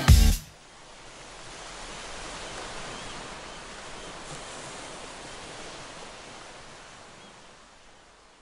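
Music cuts off about half a second in, followed by the hiss of ocean surf: a wave washing in, swelling over a couple of seconds and then slowly fading away.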